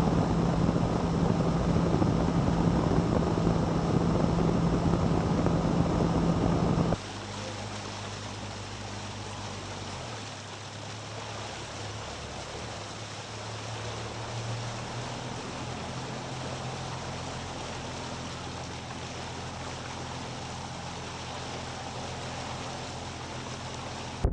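Bass boat's outboard motor running underway, a steady hum over rushing wind and water. About seven seconds in it cuts abruptly to a quieter, lower steady engine drone.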